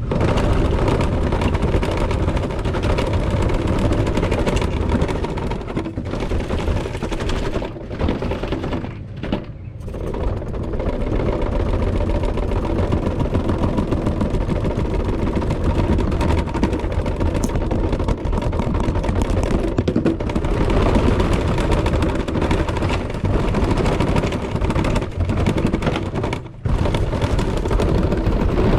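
Radio-controlled car driving hard over rough ground, heard from a camera mounted on the car: motor and tyres running with a dense clatter of bumps and rattles. The noise dips briefly about a third of the way in and again near the end.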